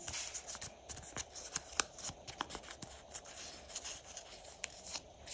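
A small strip of paper being folded and creased between the fingers: faint rustling with many small, irregular crackles and clicks.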